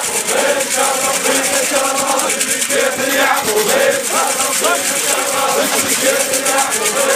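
A crowd of men chanting together in a hoarse, wavering chorus, with a fast, even clapping rhythm running through it.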